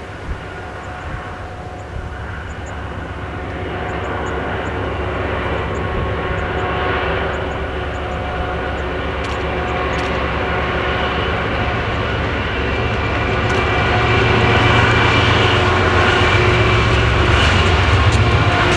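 Two BNSF diesel-electric locomotives leading a freight train approach and pass, their engines a steady drone of several tones over a low rumble. The sound grows steadily louder as they come close, loudest in the last few seconds.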